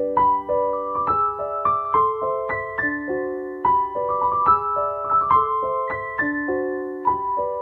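Background piano music: a gentle melody of struck notes, several a second, ringing and fading over held lower notes.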